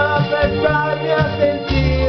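A man singing a melody in Italian over a recorded backing track with a steady bass line and guitar.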